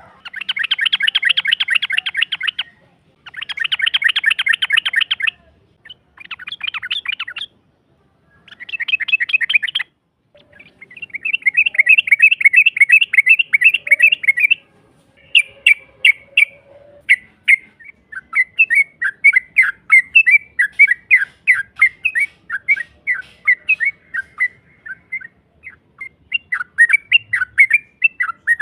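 Yellow-vented bulbul (trucukan) giving fast rattling trills in bursts of one to three seconds with short pauses between, then a longer run of quick separate chirps. This is the long 'ropel' chatter used as a lure call.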